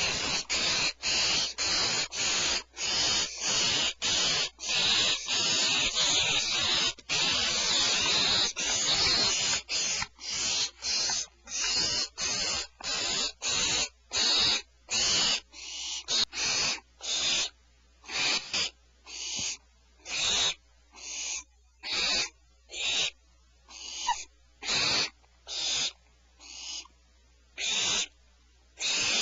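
Owlets giving repeated raspy, hissing begging calls, dense and overlapping at first, then slowing to about one call a second with short gaps between.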